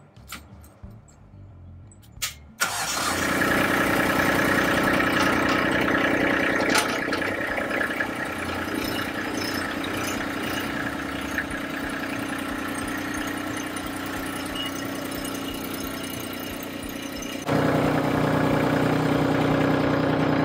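Kubota LX2610 compact tractor's three-cylinder diesel engine starting about two and a half seconds in, then running steadily. It runs noticeably louder for the last few seconds.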